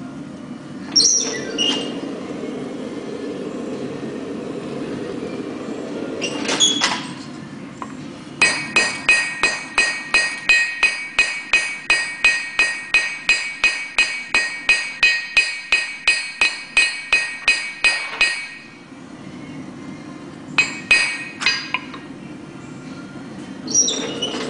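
Blacksmith's hammer striking red-hot steel on an anvil, about four ringing blows a second for some ten seconds, flattening the end of the bar. A few single metallic clanks come before and after the run, over a steady low rushing noise.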